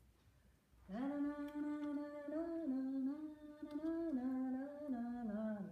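A woman humming a tune to herself, starting about a second in: a run of held notes that step up and down and settle lower near the end.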